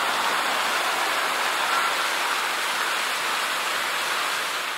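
Steady hiss of passing road traffic, car tyres on the pavement of a busy multi-lane avenue.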